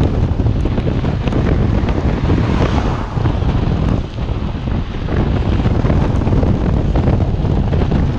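Heavy wind buffeting the microphone of a recumbent trike moving fast, with rolling tyre noise on a wet road surface and a few small knocks. The sound is a steady, loud rumble with no pauses.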